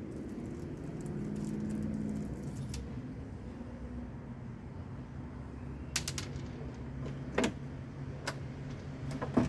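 A few sharp, small metallic clicks and taps in the second half as an RC boat propeller and its nut are handled and fitted onto the propeller shaft, over a low steady hum.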